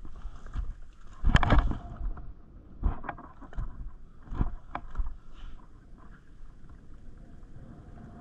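Footsteps on wooden decking: a string of irregular thuds and knocks, the loudest about a second and a half in, dying away after about five seconds to a faint steady background.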